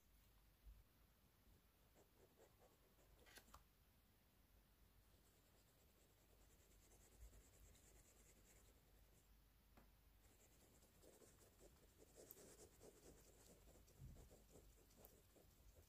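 Faint scratchy rubbing of a paintbrush being worked into watercolour half-pans to pick up paint, busiest in the last few seconds, with a few small taps.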